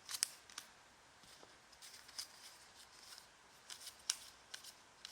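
Prestige basketball trading cards being handled and flipped through one by one: a scatter of faint, short clicks and scratchy slides of card against card.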